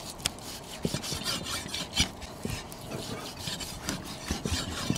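Knife slicing pork belly: irregular cutting and scraping strokes, about two or three a second, with a sharper knock about two seconds in.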